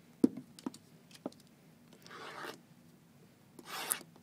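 Clear plastic shrink-wrap being peeled and torn off a hard card box. There are a few sharp clicks from the box being handled in the first second or so, then two short tearing sounds about two and four seconds in.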